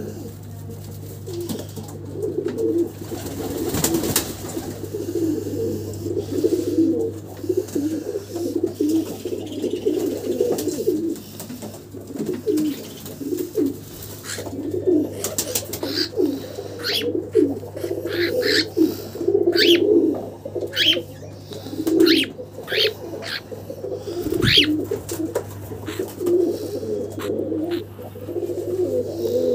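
Domestic pigeons cooing continuously, many birds overlapping. From about halfway, short sharp high chirps from a smaller bird repeat over the cooing.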